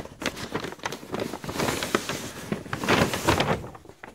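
Paper shopping bag rustling as folded pants are pulled out of it and handled, in irregular bursts that fade near the end.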